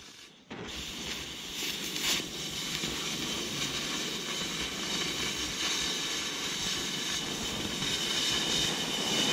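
Oxy-fuel cutting torch hissing steadily as its oxygen jet cuts through the wall of an 8-inch steel pipe. The hiss starts about half a second in.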